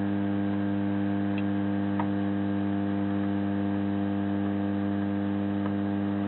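Hot-air soldering station running at full air, heating plastic: a steady, even hum over a hiss, with a few faint ticks.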